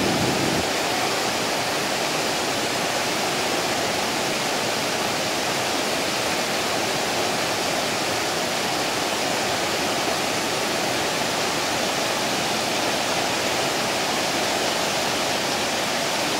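River water rushing steadily over shallow rapids.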